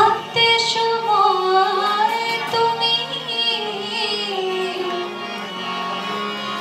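A female voice sings a slow, ornamented devotional melody with pitch glides, over a steady drone of held harmonium notes.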